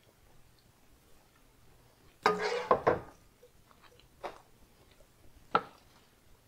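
A ladle scraping and knocking against a metal cooking pot while thick ground-beef sauce is scooped out: a cluster of scrapes and knocks about two seconds in, then single sharp taps about four seconds in and again a second and a half later.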